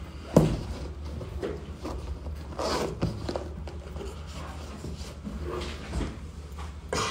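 Rustling, scuffing and knocking as a sneaker is handled and put on, with one sharp knock about half a second in over a low room hum.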